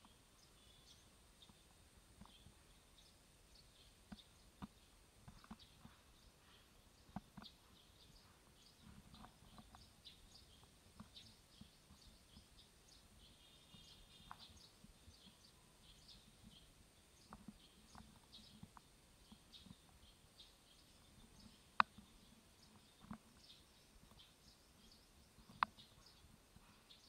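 Near silence with faint, scattered high chirps throughout and a few small ticks, two of them sharper clicks about 22 and 26 seconds in.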